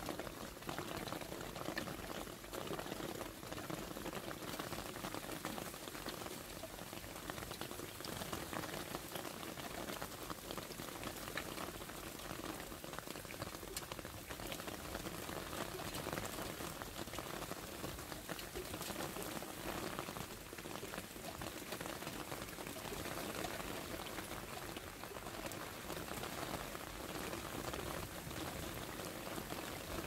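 Steady rain falling on leaves, plant pots and wet paving, heard as an even hiss with many small drop hits.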